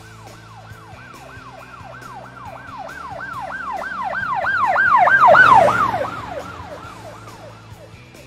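Police siren in a fast yelp, each wail sweeping down in pitch about four times a second. It grows louder to its peak about five and a half seconds in, then fades, like a vehicle passing by. Faint background music plays underneath.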